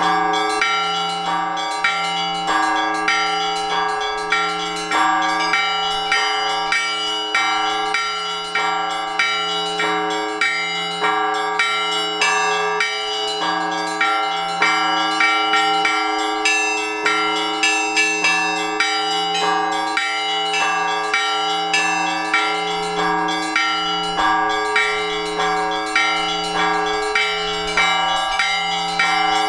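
Orthodox church bells rung together in a peal for the all-night vigil: a deep bell struck steadily about once every second and a bit, beneath quick rhythmic strikes of several smaller bells.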